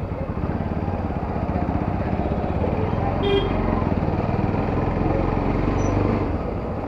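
Motor scooter engine running with road and street noise while riding through a busy market street, and one short vehicle horn toot about three seconds in.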